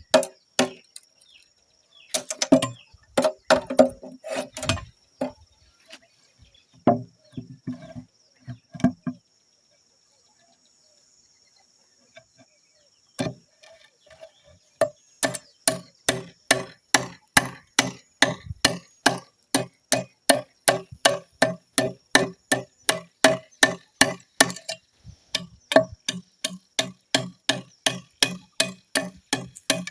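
Rapid repeated blows of a hand tool on wood, each with a short ringing knock. The blows come in irregular bunches at first, stop for a few seconds near the middle, then go on steadily at about two to three strikes a second.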